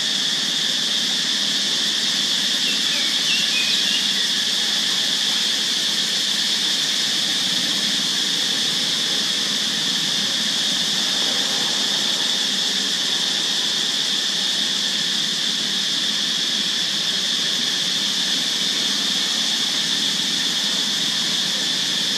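Steady, high-pitched insect drone, with a faint short chirp about three seconds in.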